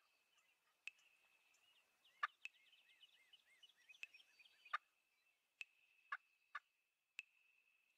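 Faint calls of a distant flock of wild turkeys: about nine sharp, brief notes at irregular intervals, with a short run of quick chirps about two seconds in, over a faint steady high tone.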